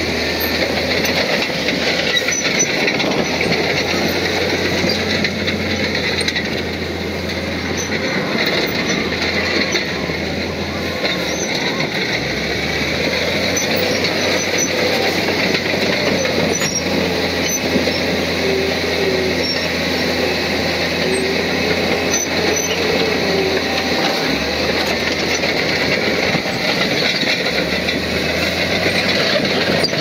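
Komatsu crawler bulldozer working: a steady diesel engine note under the squeal and clank of its steel tracks, with wavering squeals in the second half.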